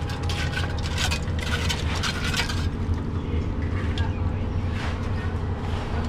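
An engine runs steadily with a low hum. In the first half, tools scrape and clink several times.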